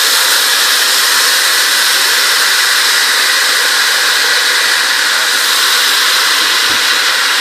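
A little water hitting hot oil and sugar caramelized golden, sizzling and steaming in a loud, steady hiss.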